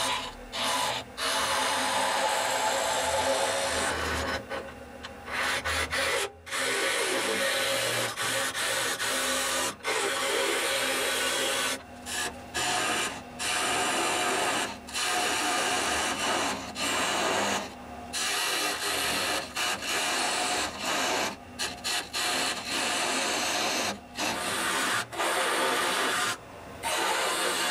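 Turning tool scraping the inside of a wooden piece spinning on a lathe while it is hollowed out: a steady rasping cut that breaks off briefly many times.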